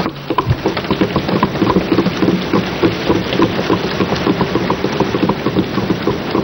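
A chamber full of lawmakers applauding by thumping their desks, with some hand clapping: a dense, irregular patter of thumps that keeps going.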